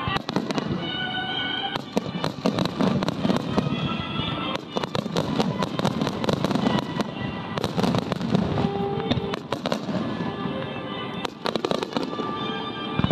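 Fireworks display: aerial shells bursting in quick succession, a dense run of sharp bangs, with music playing underneath.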